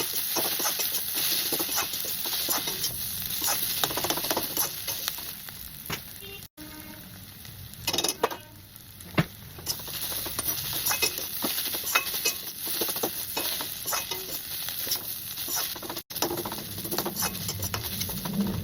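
Bitter gourd (karela) sizzling as it fries in a pan, with a spatula stirring and scraping against the pan in many short clicks. The sound cuts out abruptly twice.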